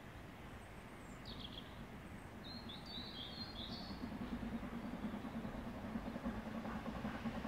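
Faint low rumble of a distant approaching train, slowly building and starting to pulse about halfway through. A few short bird chirps come in the first half.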